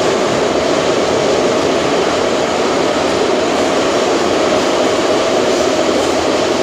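Inside a moving Ezh3-type Moscow metro car (Em-508T): the loud, steady rumble of the train running through the tunnel, wheels and running gear droning without a break.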